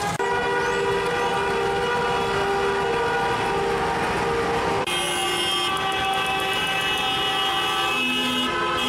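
Several car horns held down together in celebratory honking, making a steady, sustained chord of overlapping pitches that shifts to a different set of tones about five seconds in.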